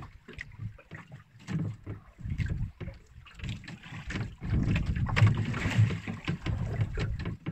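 Water sloshing and knocking against a small boat's hull at sea, with wind on the microphone; irregular knocks and splashes that grow louder about halfway through.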